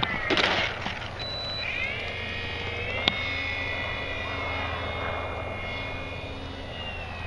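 Electric motor and propeller of a ParkZone P-47 RC model plane whining. The pitch rises about two seconds in as it throttles up and climbs away from a low pass, then holds steady. A brief rush of noise comes near the start and a single sharp click about three seconds in.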